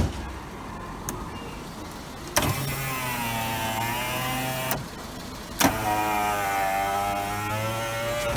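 Toyota Wish passenger-door power window regulator motor whining as it drives the glass one way for about two seconds, stopping with a click. It then runs back for about three seconds and ends in a loud knock as the glass stops. A loud knock also comes at the very start, from the end of an earlier run.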